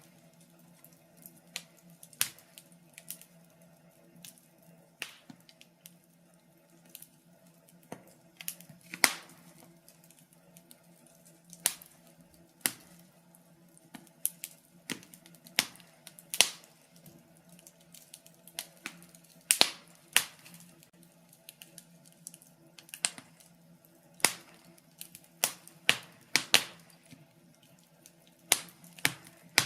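Wood fire crackling in a fireplace: irregular sharp pops and snaps, some loud and some faint, scattered a few seconds apart over a faint steady hum.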